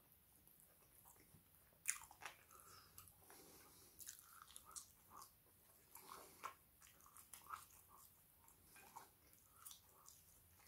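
Faint, close-up mouth sounds of someone eating barbecue chicken wings and chips: soft biting and chewing, with many small wet clicks and a sharper click about two seconds in.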